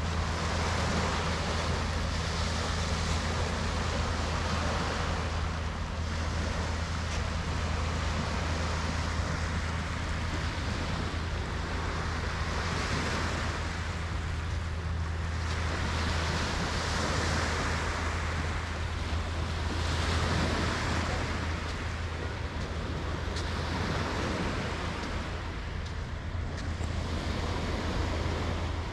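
Small waves washing onto the shore, the wash swelling and fading every few seconds, over a steady low hum.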